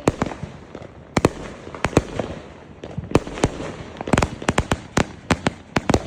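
Fireworks going off: a string of sharp bangs at irregular intervals, coming closer together in the last couple of seconds.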